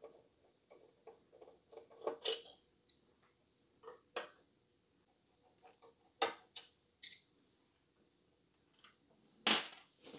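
Scattered faint clicks and light scrapes of a screwdriver undoing the screws of a motherboard's stock AM5 CPU-cooler retention bracket and lifting the plastic bracket off, with a louder clack near the end.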